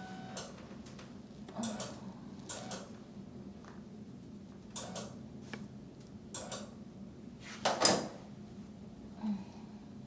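Short rustling and brushing strokes from hands moving over skin and clothing during massage, spaced a second or two apart, with one louder stroke near the end.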